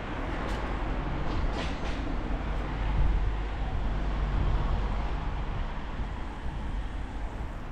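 Street traffic going by, with a low engine rumble that swells to its loudest about three to five seconds in.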